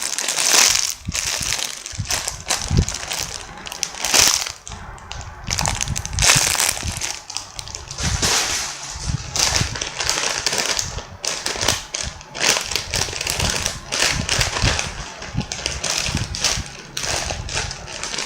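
Plastic packaging crinkling and crackling in the hands as a squishy's bag is worked open, with irregular sharp crackles throughout.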